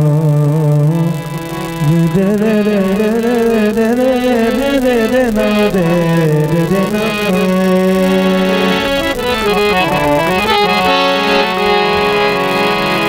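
A man singing a long, wavering melodic phrase without words over a harmonium; about seven seconds in, the melody settles into long, steady held notes.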